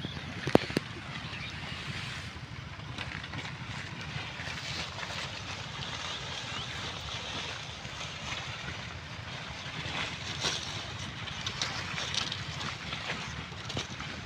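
Wind buffeting the microphone outdoors, a steady low rumble under a hiss, with two sharp clicks about half a second in.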